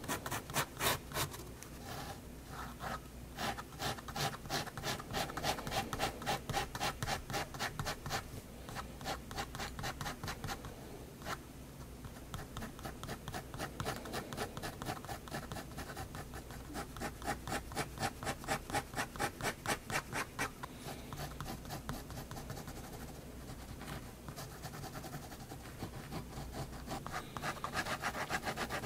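Staedtler 0.3 mm pigment liner scratching across sketchbook paper in quick, short repeated strokes, several a second, as it hatches, with a few brief pauses between runs.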